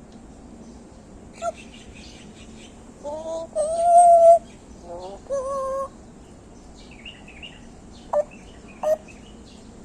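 Pet parrot calling: a short squawk, then pitched whistling calls about three to six seconds in, the loudest near four seconds, and two short chirps near the end.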